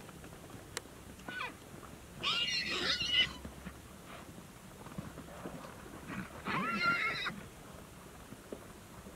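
Wild mustang stallions challenging each other at water: two loud, high-pitched squealing calls, each about a second long, about four seconds apart.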